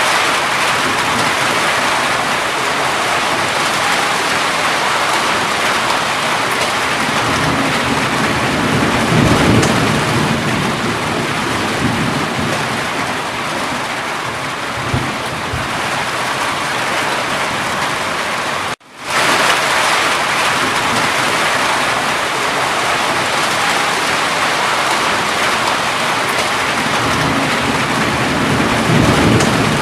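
Steady heavy rain hissing, with low rolling thunder swelling up about 8 to 13 seconds in and again near the end. About two-thirds of the way through the sound drops out abruptly and fades back in within a second.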